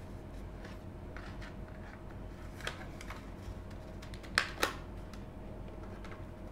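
Plastic snap clips of a Linksys E900 router's case clicking loose as a plastic card is pried along the seam between the covers: a light click about two and a half seconds in, then two sharp snaps in quick succession a little past halfway, with faint scraping of the card between them.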